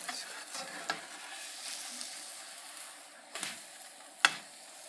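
Pancake batter sizzling steadily in a hot skillet, with a few sharp clicks of a spatula against the pan; the loudest click comes near the end.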